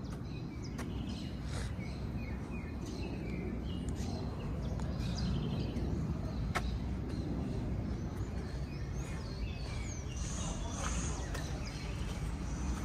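Outdoor ambience: a steady low rumble with birds chirping now and then and a few sharp clicks, one about six and a half seconds in.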